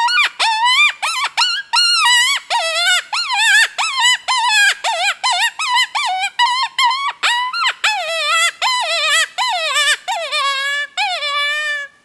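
Cottontail rabbit distress cries blown on an open-reed predator hand call (the Snack Time): a rapid run of short, high cries, about three or four a second, each dipping and rising in pitch. Near the end the cries turn longer and lower before stopping.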